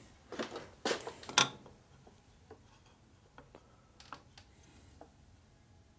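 A precision machinist's level being handled on a cast-iron lathe bed: a few sharp metal clinks and knocks in the first second and a half, loudest a little after one second, then faint scattered ticks as it is set down in a new spot.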